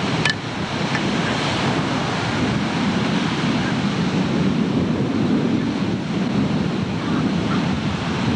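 Ocean surf breaking and washing up the beach, with wind on the camcorder microphone. A short click comes just after the start.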